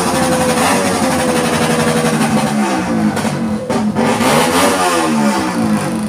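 Engines revving, the pitch holding steady at first, then rising and falling, with more than one engine sliding in pitch at once about halfway through.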